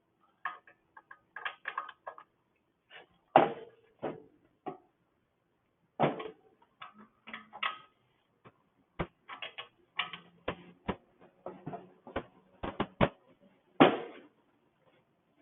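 Hand tools working on a Honda GCV160 engine: irregular clicks, taps and a few louder knocks of a wrench and metal parts as the carburetor is tightened down.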